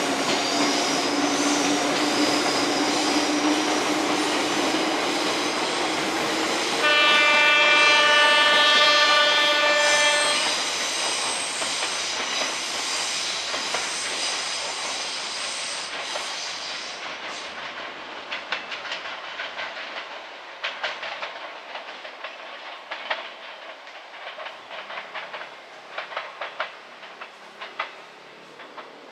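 Izukyu 2100 series Resort 21 electric train moving off and away. Its horn sounds once for about three seconds. Then the running noise fades, leaving a rhythm of wheels clicking over rail joints.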